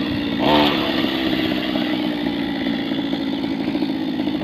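Small gasoline engine of a Go-Ped Go Quad kart running at a steady, low speed, with a brief louder burst about half a second in.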